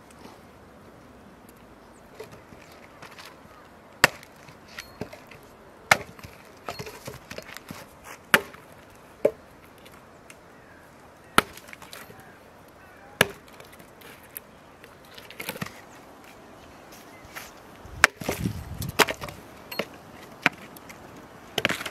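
An axe chopping and splitting firewood logs: sharp single strikes every second or two, then a spell of wood cracking and splintering near the end as a split piece is pulled apart.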